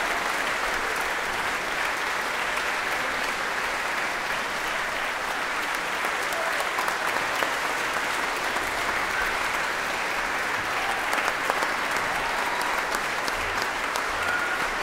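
Audience applauding steadily: dense, even clapping from a large crowd.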